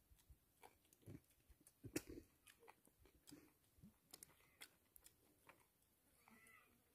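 Near silence, broken by faint scattered clicks and small crackles, the sharpest about two seconds in.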